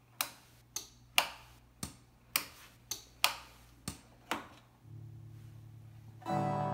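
About nine sharp knocks, roughly twice a second, as a hand taps on top of a Carvin Pro Bass 200 combo amp whose dirty internal contacts make it work only intermittently. About five seconds in, a low hum comes up from the amp as the volume knob is turned, and near the end a sustained instrument note sounds through its speaker and slowly decays.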